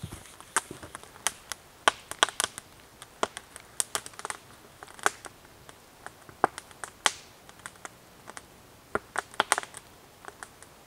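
Wood campfire crackling, with irregular sharp pops, a few of them louder than the rest.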